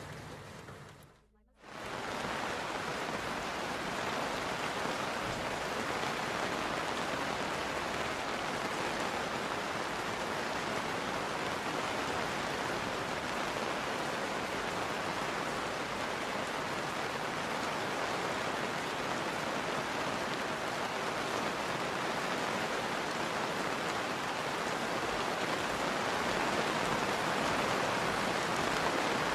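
Steady rain, an even hiss of falling rain. It cuts out briefly about a second in, then comes back and holds steady.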